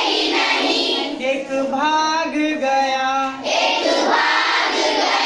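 A group of children singing together in unison, echoing a line of a Hindi call-and-response song just sung by the leader.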